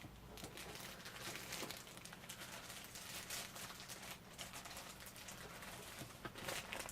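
Faint rustling and crinkling of plastic packaging with small clicks, as figure accessory parts are handled and unwrapped.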